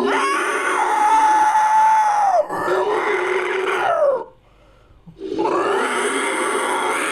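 Fictional creature sound effect made from a layered, processed voice and animal recordings. The first call is long and held at a steady pitch, then slides down. A second, shorter call falls in pitch, and after a pause of about a second a third long call begins.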